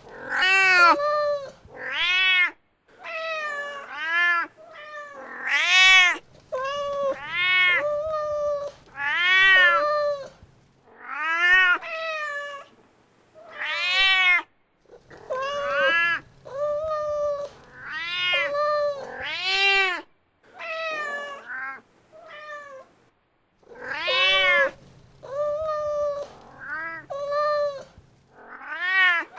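A domestic mother cat meowing again and again, calling for her kittens: short calls of under a second each, each rising and then falling in pitch, about one a second with short gaps between them.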